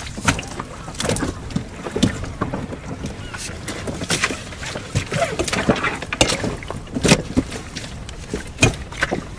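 Irregular knocks and scrapes of a long-handled cleaning pole being worked against a fibreglass boat deck, with some wind on the microphone.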